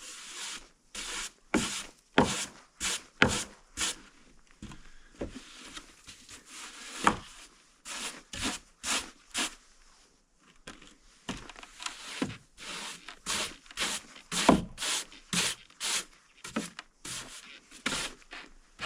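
Broom sweeping snow off porch stairs: a run of quick, scratchy brushing strokes, one to three a second, with a short lull about halfway.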